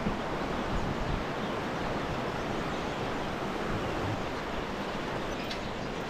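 Steady rushing noise of a river flowing below a suspension footbridge, mixed with wind on the microphone.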